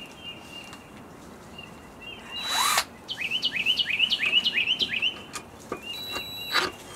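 A bird chirping in a quick run of repeated notes, about four a second. A power drill runs in short bursts, briefly about two and a half seconds in and again near the end.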